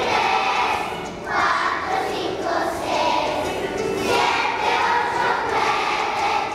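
A large group of young children singing together in unison as a choir, in sung phrases, with a short break about a second in before the next phrase.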